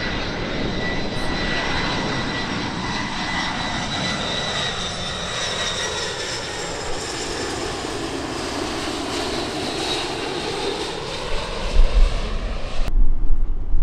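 Jet airliner's engines passing close overhead on approach: a steady noisy rush with a high turbine whine, and a slow sweeping hollow tone as the aircraft goes over. Near the end the engine sound cuts off abruptly, leaving a low gusty rumble.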